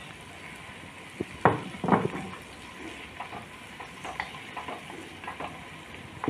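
Wooden spatula stirring chopped onions, tomatoes and green chillies frying in butter in a pot, with a soft sizzle and scraping. A few louder knocks come about a second and a half to two seconds in, then lighter clicks of the spatula.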